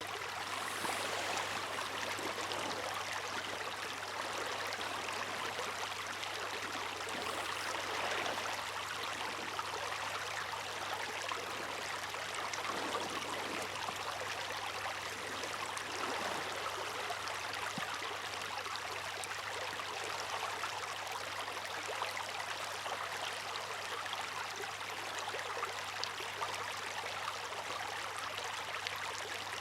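Moving water rushing and splashing without a break, swelling slightly now and then, over a faint steady low hum.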